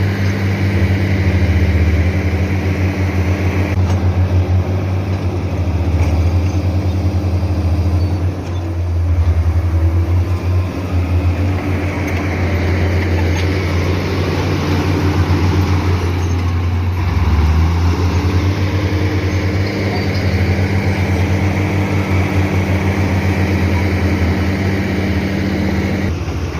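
Heavy earthmoving machine's diesel engine running loud and steady. Its pitch dips twice, about a third of the way in and again past the middle, each time climbing back.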